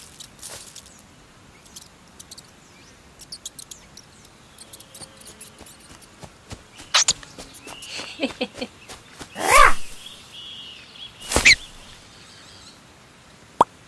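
Cartoon sound effects for a lion cub stalking and pouncing on a mouse in grass: scattered light ticks and rustles with faint chirping, then two loud sudden hits about nine and a half and eleven and a half seconds in, the first with a falling tone.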